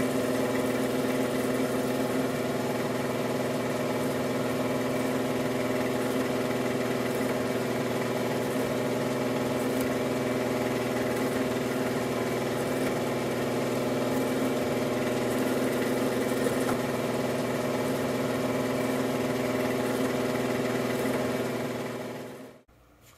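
A 1978 Powermatic-Burke Millrite milling machine's spindle running steadily with a steady hum while it drills a row of small holes, one after another, across an armature bar. The sound dies away near the end as the machine stops.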